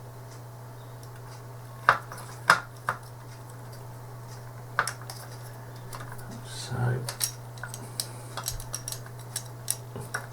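Plastic parts of an Atari-style joystick being handled and fitted back together: sharp clicks and clatters, three loud ones about two seconds in, then many smaller clicks through the second half.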